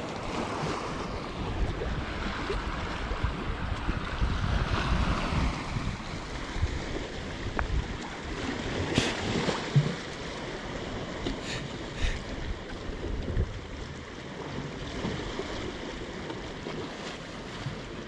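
Small sea waves lapping against a stone embankment wall, with wind blowing on the microphone. A few short clicks come near the middle.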